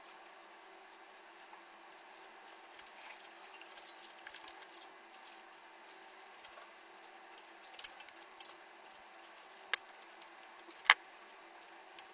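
Small hard parts being handled during a PC build: light rustling and scattered metallic-plastic clicks over a faint hiss, with a few sharp clicks near the end and the loudest about eleven seconds in.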